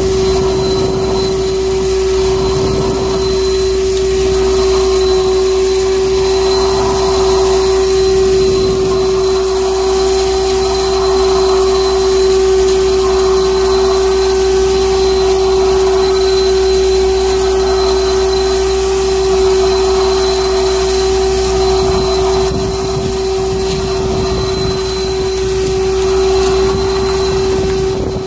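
Heavy road-construction machine running steadily with a constant pitched whine over rough engine noise.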